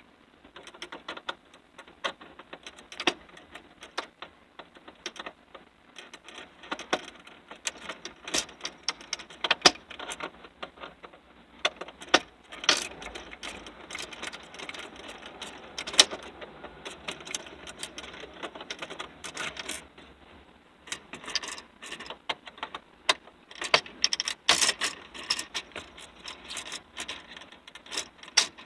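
Irregular clicks, taps and light rattles of hand tools and plastic dashboard trim being worked loose on a car's center console.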